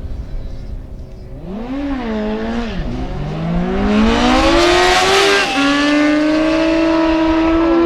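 Racing motorcycle engine revved once, then launched hard, its pitch climbing steeply under full throttle. It shifts up about five and a half seconds in and holds a high, steady pitch, with another shift near the end.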